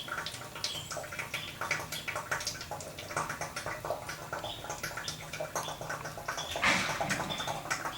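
Cold engine oil draining slowly from a BMW X5's 3-litre engine into a nearly full drain pan, with irregular drips and splashes. It gets louder for a moment about seven seconds in.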